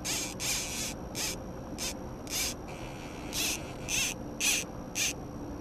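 Spinning fishing reel whirring in short bursts, about nine of them with a pause near the middle, as a hooked salmon is reeled in on a bent rod.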